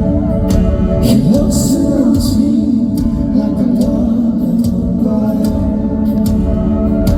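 Live band playing a slow folk-pop song with a sung melody over sustained guitar and keyboard notes, with cymbal hits now and then.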